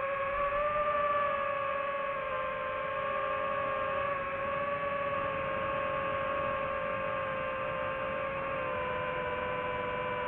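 DJI FPV drone's motors and propellers whining in a steady tone, the pitch dipping slightly near the end as the throttle eases.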